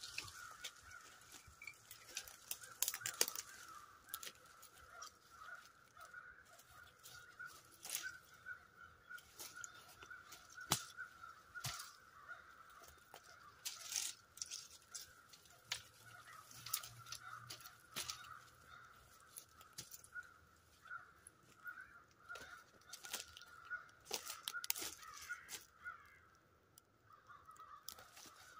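Irregular sharp snaps and crackles of twigs and small branches being broken and handled, over a steady, slightly wavering high-pitched hum.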